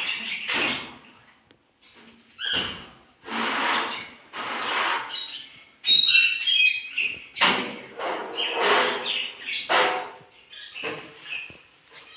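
Cockatoo giving a string of harsh, raspy squawks, about ten in all, with a quick run of short, high whistled chirps about six seconds in, the loudest part.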